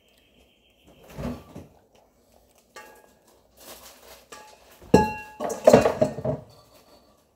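Metal kitchenware clattering: a stainless steel mixing bowl and utensils knocked and set down, with ringing metallic clanks. The loudest clatter comes about five to six seconds in.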